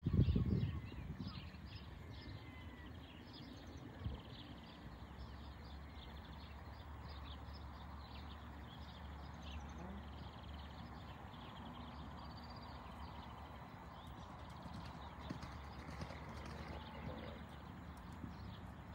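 Muffled hoofbeats of a ridden black horse trotting and cantering on a grass arena, over a steady low rumble. The clip opens with a brief loud knock, and there is a smaller thump about four seconds in.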